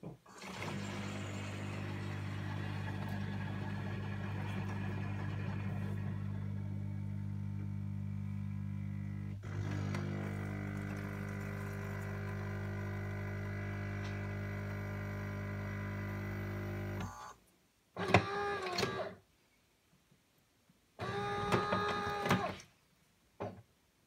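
Siemens fully automatic coffee machine brewing a latte macchiato: its pump hums steadily as coffee runs into the glass of milk, with a single click partway through, and stops about three-quarters of the way in. Two short mechanical whirs and a faint click follow as the machine finishes the cycle.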